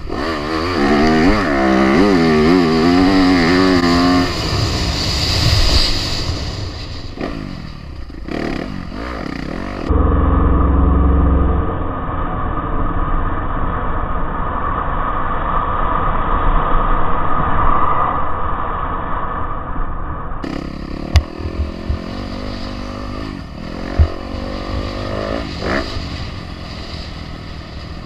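Four-stroke motocross dirt bike engines revving up and down as riders work the throttle around a dirt track. The pitch rises and falls repeatedly in the first few seconds. Near the end there are two sharp knocks.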